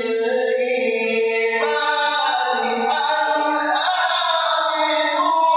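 A man chanting the Quran in melodic tajweed style, holding long drawn-out notes that slide in pitch a couple of times.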